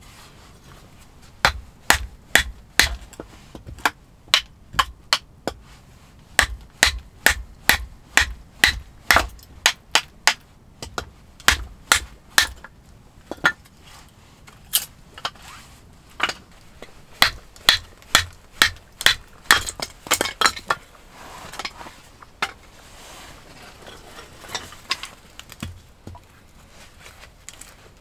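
Knife being batoned with a wooden mallet through a stick of firewood on a stump to split kindling: sharp wooden knocks in quick runs of several, with short pauses between runs.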